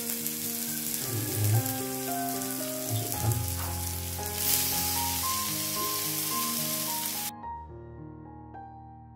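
Chopped onion, garlic and tomato sizzling in hot oil in a frying pan, with a couple of brief knocks about one and three seconds in. The sizzle grows stronger about four and a half seconds in, as chopped cassava leaves go into the pan, then cuts off abruptly near the end. Soft piano music runs underneath.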